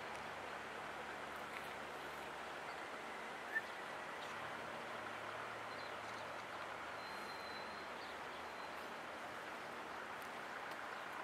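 Steady rushing outdoor background noise, with a single short click about three and a half seconds in.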